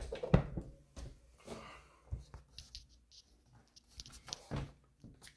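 Handling noise: irregular light knocks, clicks and rubbing as hands move the monitor and the phone held against it, the sharpest knock about a third of a second in.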